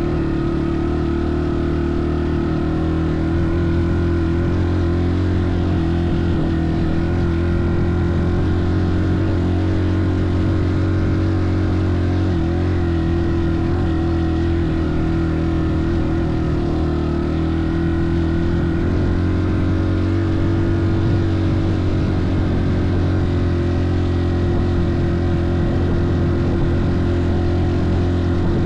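A motor running steadily at an unchanging pitch, a continuous drone with no revving.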